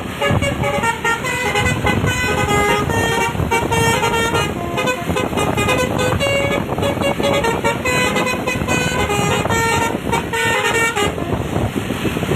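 A bus's Basuri telolet horn plays a quick melody of short notes, several tones sounding together and stepping from pitch to pitch. It sounds over a steady low background noise.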